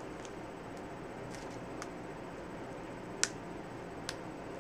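Fingers picking at tape and plastic wrapping on a packaged comic: a few small sharp clicks over a steady hiss, the sharpest about three seconds in and another just after four.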